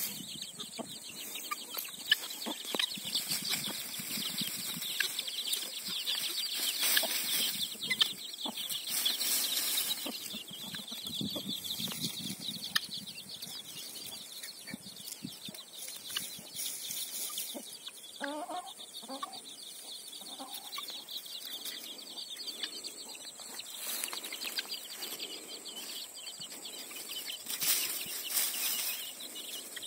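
Domestic hen clucking to her brood of young chicks, with a run of low clucks a little past the middle, over steady high peeping from the chicks.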